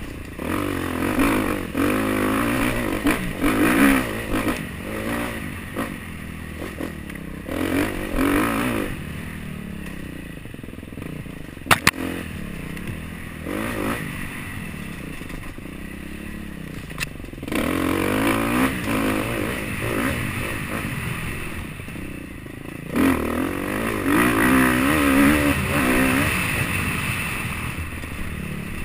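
Dirt bike engine revving up and down with the throttle during off-road trail riding, heard from the bike itself, with clatter from the bike over rough ground. The engine eases off through the middle, where two sharp knocks stand out, then pulls hard again near the end.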